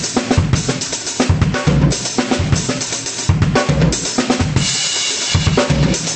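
Acoustic drum kit being played: a steady groove of bass drum hits with snare strokes and cymbals. A little past the middle the beat stops briefly for a ringing cymbal wash of about a second, then the groove comes back in.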